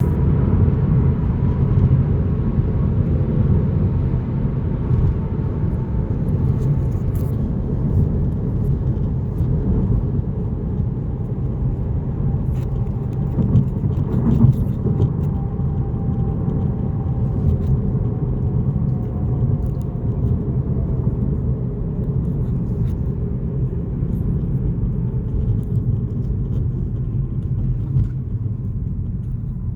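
Steady road and tyre rumble inside a Tesla Model 3 cabin while driving. Faint, irregular light clicks come through it: the seat belt housing's plastic trim rattling.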